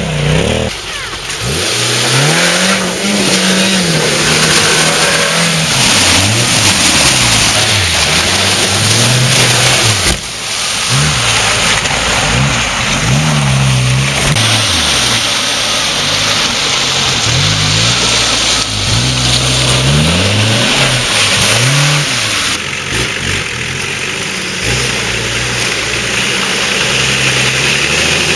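Off-road 4x4 engines revving up and down over and over while the vehicles push through mud and water. The engine sound changes at cuts, about a third of the way in and again later on; a Suzuki Samurai is followed by a Nissan Patrol near the end.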